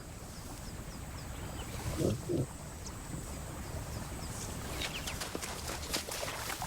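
Two short low calls from a young lion about two seconds in, over steady outdoor ambience with faint bird chirps.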